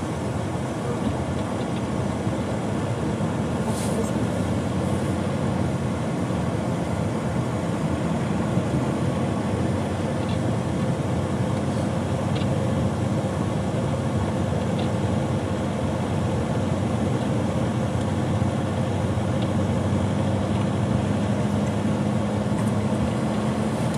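Car driving on the road, heard from inside the cabin: a steady rumble of engine and tyre noise, with a low hum that grows a little stronger near the end.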